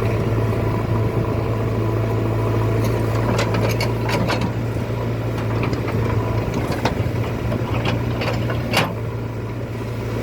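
JCB excavator's diesel engine running steadily with a deep, even hum, overlaid by scattered sharp metallic clicks and knocks, clustered around the middle with single ones near the end.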